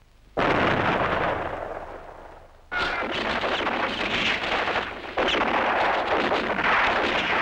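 Battle sound effects: a sudden loud explosion about half a second in, fading over two seconds, then from about three seconds on dense, crackling gunfire and blasts that come in waves and keep going.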